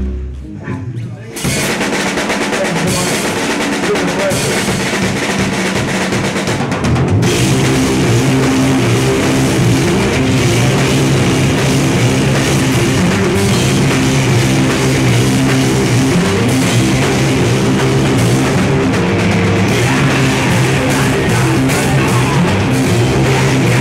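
A live doom/sludge metal band starting a song. The drums come in about a second in, and the guitars and bass join fully at about seven seconds, holding heavy low notes.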